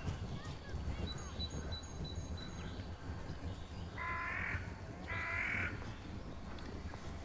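A bird calling twice, about a second apart, each call about half a second long, four and five seconds in. Earlier comes a quick run of five short high chirps, all over a steady low rumble.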